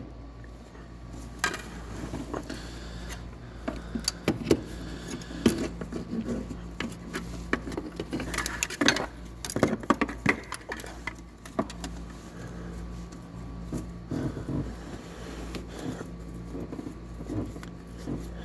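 Irregular metallic clicks, clinks and knocks of an oil filter wrench being fitted and worked on the oil filter in the engine bay, over a steady low hum.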